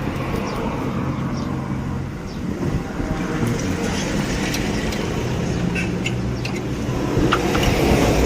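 A motor vehicle's engine running steadily, with a few faint light clicks.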